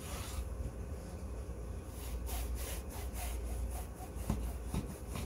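Bread knife sawing through a crusty loaf of sourdough on a wooden cutting board: quick back-and-forth rasping strokes in runs, the busiest a little after two seconds in, with a few more near the end.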